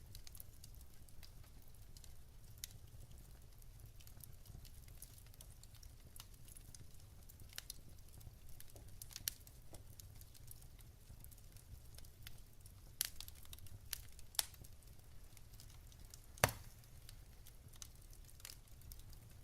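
Wood fire in a fireplace crackling: sparse small snaps and ticks with a few louder pops, three of them in the second half, over a low steady rumble.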